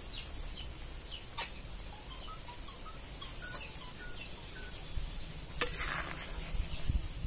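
Small birds chirping here and there over a steady low outdoor background noise. About five and a half seconds in, a short scraping clatter of a ladle going into an aluminium pot of milk.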